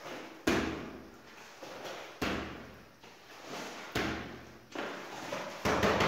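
Long-handled floor squeegee pushing soapy water across wet tiles in repeated strokes, one about every one and a half to two seconds. Each stroke starts with a sharp slap on the floor and trails off in a wet swish, and the last one near the end comes as a quick double hit.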